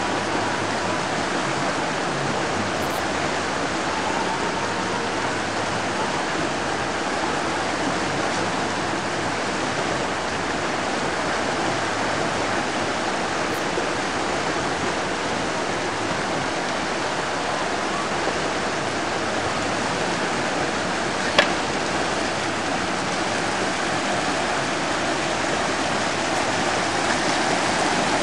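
Whitewater rapids of a slalom course rushing steadily, with a single sharp click about three quarters of the way through.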